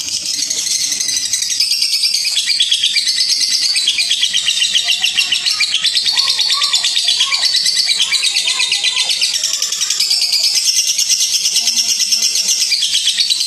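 Lovebird singing a long 'ngekek': a fast, unbroken chattering trill of rapidly repeated high notes. It is the extended chatter that Indonesian keepers prize and play as a bait call to set other lovebirds answering.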